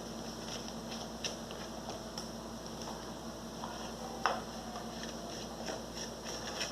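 Faint scattered ticks and light scrapes of a screwdriver turning a small screw into a blender's drive coupling, with one sharper click about four seconds in.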